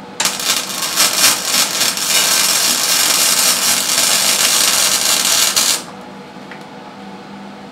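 Electric arc welding on a steel go-kart engine-mount bracket: the arc's loud hiss with a fine crackle starts just after the beginning, runs for about five and a half seconds, and cuts off suddenly.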